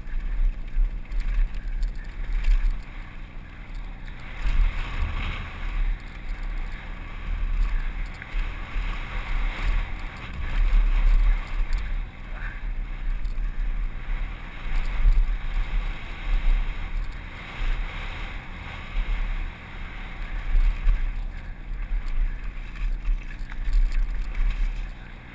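Wind rumbling and buffeting on a helmet camera's microphone during a fast mountain-bike descent, rising and falling in gusts, with the bike's tyres and frame rattling over loose rock.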